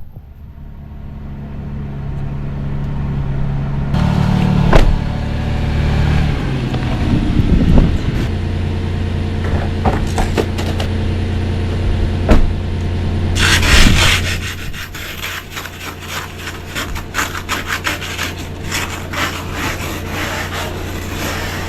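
A vehicle's engine idling steadily after being started, with a run of rapid, rhythmic scraping strokes beginning about halfway through.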